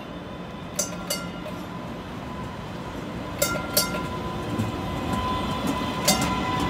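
MBTA Green Line Type 8 light rail train pulling in, its rumble growing louder as it nears, with sharp clicks in pairs as its wheels cross rail joints. A steady high whine from the train grows louder in the second half.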